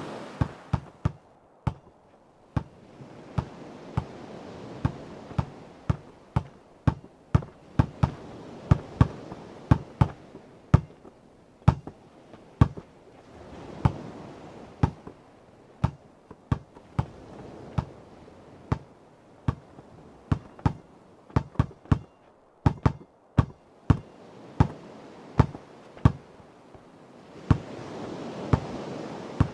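A basketball bouncing on hard ground again and again, about two bounces a second in an uneven rhythm. Ocean waves wash in and recede under it, swelling every few seconds.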